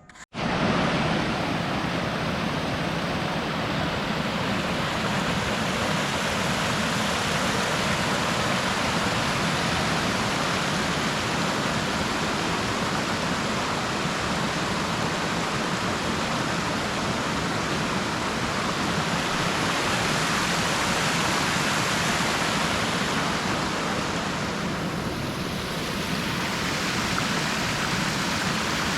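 Steady rushing of flowing river water, an even hiss with no break.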